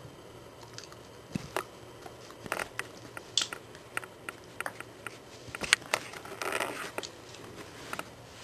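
Puppy biting and gnawing on a hard plastic cup from a puzzle toy: irregular clicks and knocks of teeth and plastic, with a longer scraping stretch a little after six seconds in.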